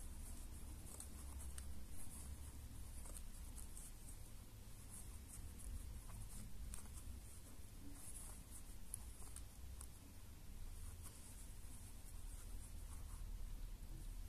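Faint scratching and rubbing of a metal crochet hook drawing yarn through stitches, in short irregular strokes, over a low steady hum.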